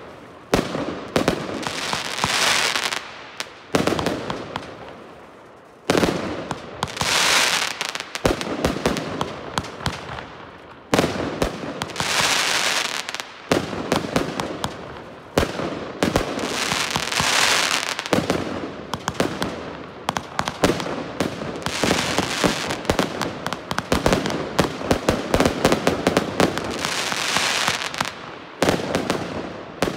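A 144-shot consumer fireworks battery firing continuously: a rapid run of sharp launch bangs and burst reports. A noisy wash swells and fades about every five seconds.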